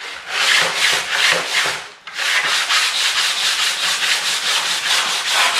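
Coarse 80-grit sandpaper on a wooden block being scrubbed by hand over a rusty steel saw plate to take it down to bare metal: rapid, even back-and-forth scraping strokes, with a brief pause about two seconds in.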